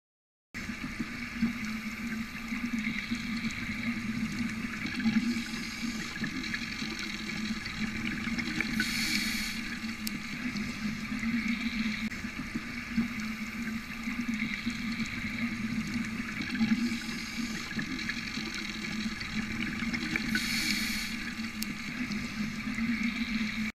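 Steady rushing, water-like noise that swells every four seconds or so, starting and stopping abruptly.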